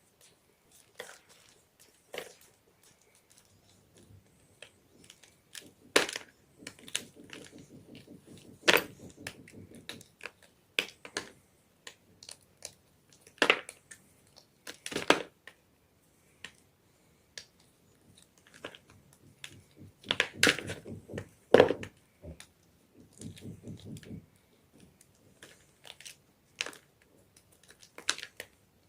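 Blocks of gym chalk being crushed, with sharp, irregular crunches and cracks and quieter gritty crumbling between them.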